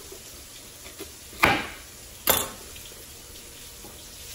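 Two sharp chops of a chef's knife cutting the ends off a bunch of carrots onto a wooden cutting board, a little under a second apart, the first about a second and a half in.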